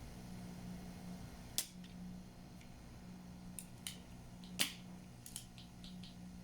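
Spring-loaded solder sucker snapping as it is fired and cocked: two sharp snaps about three seconds apart, the second louder, with a few lighter clicks around them. Underneath runs the steady hum of a solder smoke absorber fan.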